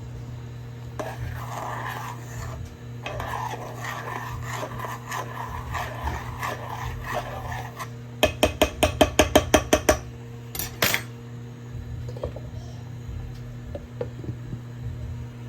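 Kitchen clatter of dishes, pots and utensils being handled over a steady electrical hum. About eight seconds in comes a quick run of about a dozen sharp clicks, then a couple of loud knocks.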